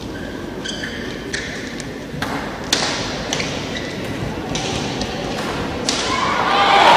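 Badminton rally: a series of sharp racket strikes on the shuttlecock and footwork knocks, then crowd applause swelling near the end as the rally finishes.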